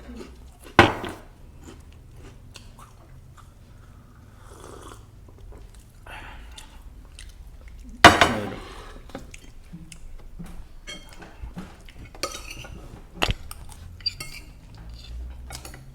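Spoons clinking and scraping on plates while eating, with quiet chewing in between. A few sharper clinks stand out, the loudest about eight seconds in.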